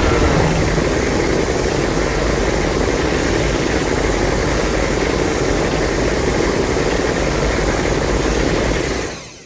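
Godzilla monster sound effect: a loud, steady rushing noise with a deep rumble underneath, held for about nine seconds and fading out near the end.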